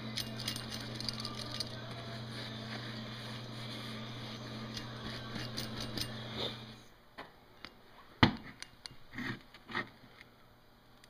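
A shop towel rubbing and scrubbing over a wheel hub's tapered roller bearing as it is wiped clean, with small ticks and a steady low hum behind it. Seven seconds or so in, the rubbing and hum stop, and a few sharp metal clicks and knocks follow as the hub and bearing are handled, the loudest about eight seconds in.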